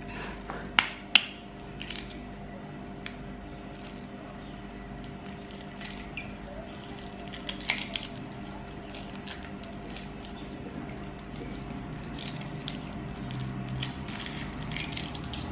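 Hard-boiled egg being cracked and peeled by hand: two sharp cracks of the shell about a second in, another pair about halfway, and scattered small crackles of shell breaking away, over a steady hum.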